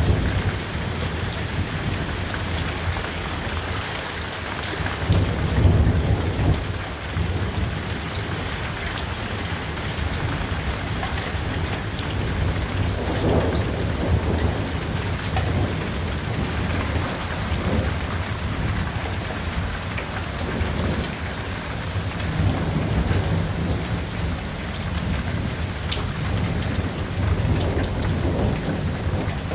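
Thunderstorm: steady heavy rain with low, rolling thunder rumbling throughout. The thunder swells loudest about five to six seconds in.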